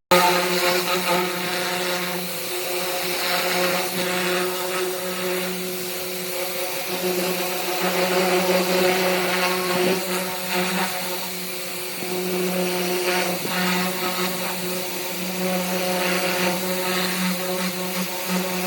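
Pressure washer running steadily, a constant motor-and-pump drone under the hiss of the high-pressure spray as it strips chemically loosened paint off car bodywork.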